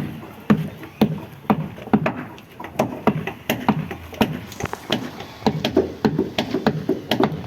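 Repeated knocks of hand tools striking wood, about two a second and unevenly spaced, as work is done on a wooden boat hull.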